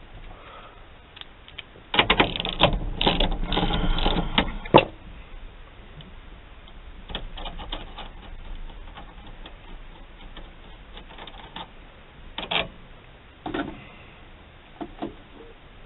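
Nut being backed off a steering-column lock plate compressor tool and the tool worked off the shaft, metal on metal: a dense run of rapid clicking and rattling for about three seconds, then scattered clicks and light knocks.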